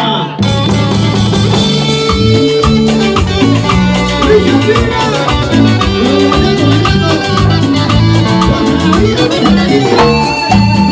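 Live band playing Latin dance music, with a stepping bass line, melody instruments and a steady percussion beat.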